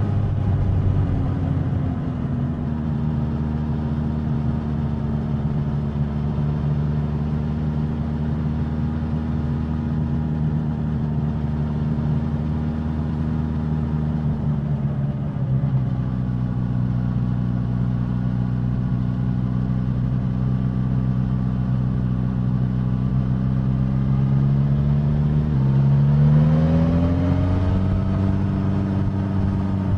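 Suzuki GSX-S1000's inline-four engine and exhaust under way at a steady cruising speed, its pitch easing down slightly about halfway through. Near the end there is a quick gear change, then the revs climb briefly and settle.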